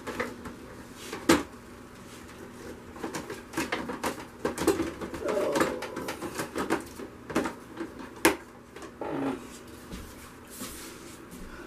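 Scattered light clicks and knocks of tools and objects being picked up and moved on a work table, with a couple of sharper knocks and a few faint short hums.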